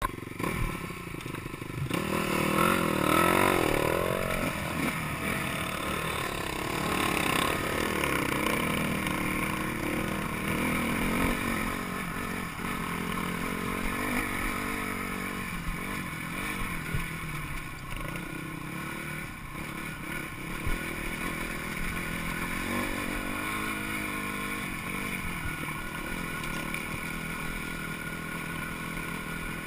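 Dirt bike engine running under load as the bike climbs a rocky trail, heard from on board. It revs up and down most strongly about two to five seconds in, then runs steadier, with some clatter of rocks under the wheels.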